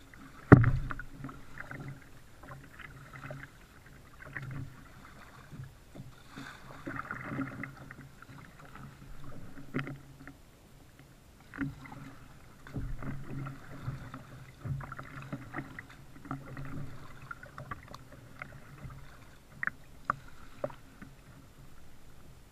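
Kayak being paddled: irregular paddle strokes with water splashing and dripping, and low thuds through the hull. One sharp knock about half a second in is the loudest sound.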